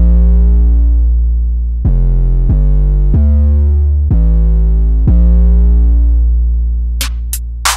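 Background electronic music: synthesizer chords over a deep bass, a new chord every second or so, with sharp drum-machine hits coming in near the end.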